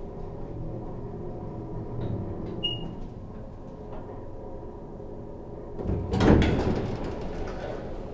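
Vintage Otis hydraulic elevator humming steadily as the car levels at the floor, then, about six seconds in, its doors sliding open with a loud clatter.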